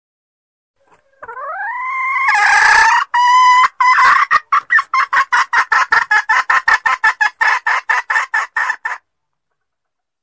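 A junglefowl hen calling: one drawn-out note that rises in pitch, then a fast run of short clucks at about five a second, stopping about nine seconds in. It is a hen's call of the kind used as a lure to draw wild males.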